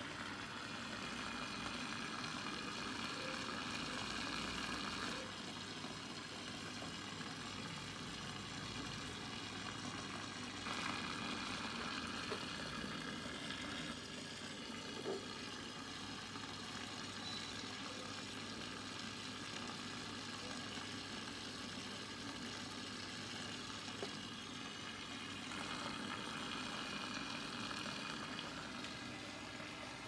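Aquarium running: a steady fizzing hiss of water and air bubbles from the filter or aeration, over a low electric hum from the pump. The hiss gets louder and softer a few times.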